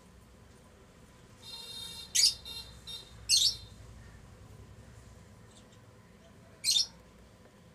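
Lutino Fischer's lovebirds calling: a short buzzy chatter about a second and a half in, then three loud, shrill chirps spread over the next few seconds, with a few fainter chirps between them.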